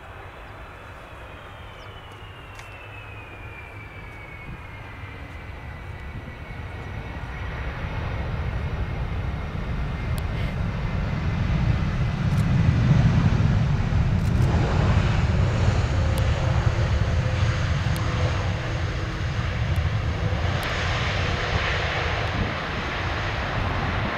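Large jet airliner flying past low: a high engine whine slides down in pitch over the first few seconds while the deep rumble builds, peaking about halfway through and staying loud after.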